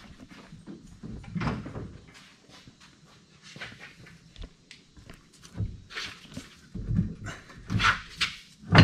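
Irregular metal clunks and knocks as van suspension parts are levered and pivoted into place by hand, growing more frequent and louder near the end.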